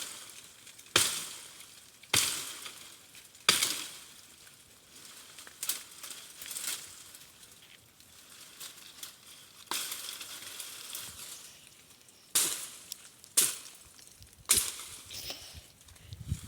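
Dry wood cracking and snapping as sticks and branches are cut and broken off: about eight sharp cracks at irregular intervals of one to two seconds, with rustling of dry brush between them.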